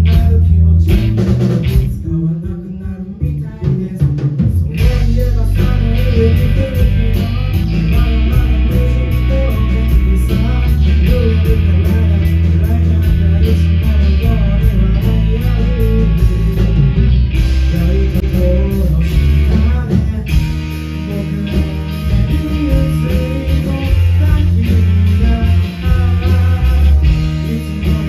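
Live rock band playing with a lead vocalist singing over electric guitar, bass guitar and drums. The band thins out about two seconds in and comes back in full at about five seconds, with steady cymbal strokes.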